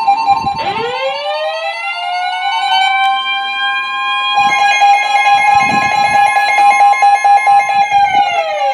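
Emergency alert tones: a steady alert tone with a siren-like tone that winds up about half a second in, holds a steady pitch, and winds down near the end.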